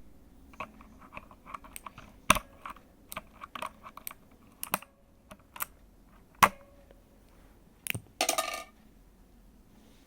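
Clicky mechanical keyboard keys being pressed in an irregular run of sharp clicks, with a few louder clacks and a short clatter of several rapid clicks near the end.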